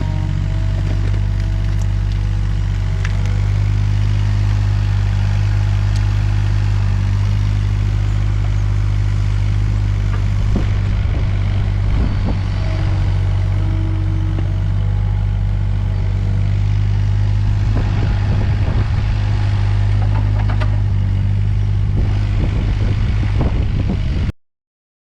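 Takeuchi TB216 mini excavator's diesel engine running steadily under work, with scattered clatter and scrapes over it. The sound cuts off suddenly near the end.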